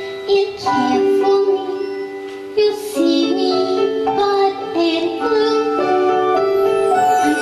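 Musical theatre ballad: a young female voice singing slow, held notes over instrumental accompaniment.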